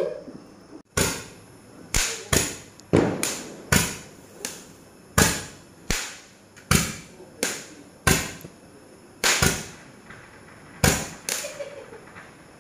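A series of about fifteen sharp bangs at irregular intervals, each dying away within about half a second.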